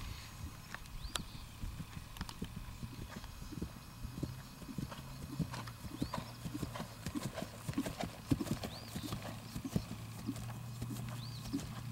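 Hoofbeats of a horse trotting on grass under a rider, an irregular run of soft knocks.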